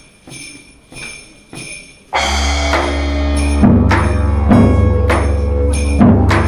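Soft, evenly spaced metallic ringing taps, about one every 0.6 s. About two seconds in, a didgeridoo drone enters suddenly, loud and very low and held steady. From about halfway, deep drum hits land under it roughly every 0.8 s.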